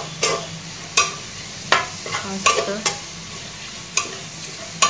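Metal spatula stirring chopped garlic and curry leaves frying in hot oil in a metal pot: a steady sizzle, with a sharp scrape-knock of the spatula against the pot about every three-quarters of a second, some seven times in all.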